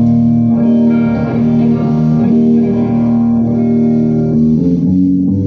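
Solo guitar played live: single notes ringing over a steady held low note, which shifts shortly before the end.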